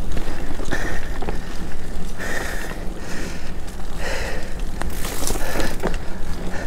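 Mountain bike rolling fast over a dirt singletrack: steady tyre and trail noise with scattered short knocks and rattles from the bike, and wind on the microphone.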